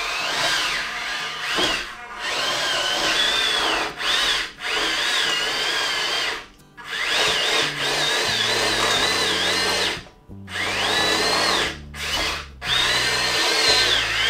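Small electric drive motors and gearboxes of a 1/16-scale WPL E1 RC tracked vehicle whining in repeated bursts of throttle, the pitch wavering up and down, with short pauses between bursts as it strains to crawl up a steep climb on its plastic tracks.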